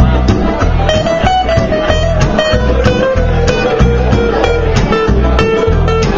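Live bluegrass band playing an instrumental passage: rapid banjo picking and strummed acoustic guitar over a steady, heavy bass beat, with a long held melody note sliding slowly down in pitch.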